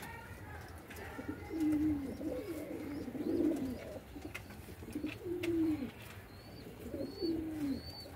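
Domestic pigeons cooing: repeated low, drawn-out, wavering coos, with a few faint high chirps near the end.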